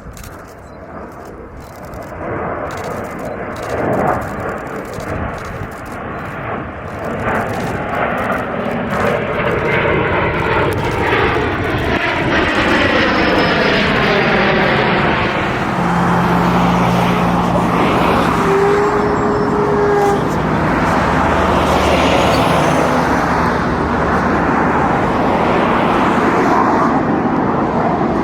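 Airplane flying past, its noise building over about fifteen seconds to a loud steady rush, with a whooshing sweep that falls in pitch as it closes in.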